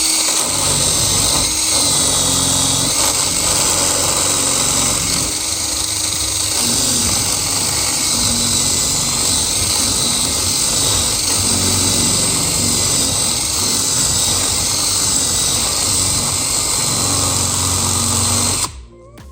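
Electric drill running continuously under load, boring into a metal lock cylinder. It stops shortly before the end.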